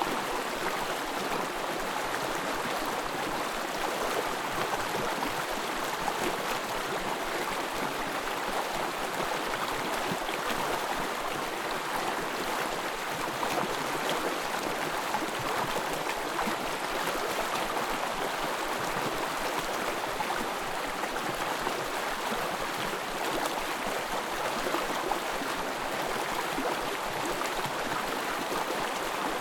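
Small forest stream flowing, a steady babble of running water.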